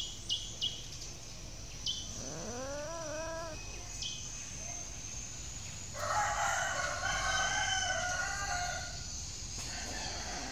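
A rooster crowing for about three seconds, starting about six seconds in. Earlier, a shorter call rises and then falls in pitch.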